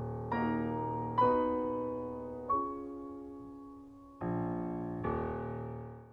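Solo piano playing slow notes and chords, a new one struck every second or so and left to ring and fade.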